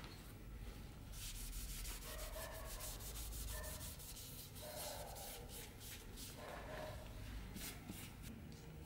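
A cloth rubbing linseed oil into a wooden dagger grip in quick, repeated back-and-forth strokes.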